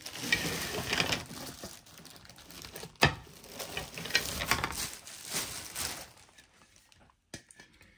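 Plastic packaging crinkling and rustling as it is pulled off and handled by hand, with one sharp knock about three seconds in. The rustling stops about six seconds in.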